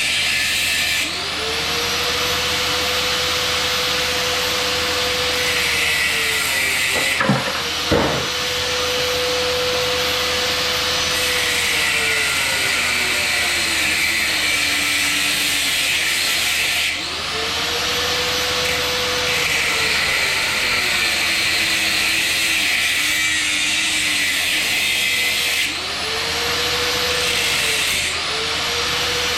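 Electric power cutting tool cutting brass off a hot water tank pressure relief valve. The motor spins up, its pitch sags as it cuts, and it winds down and starts again several times. There are two sharp knocks about seven to eight seconds in.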